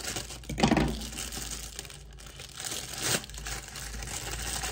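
Light-blue plastic mailer bag crinkling and tearing as it is opened by hand, with two louder bursts of crinkling, about half a second in and again about three seconds in.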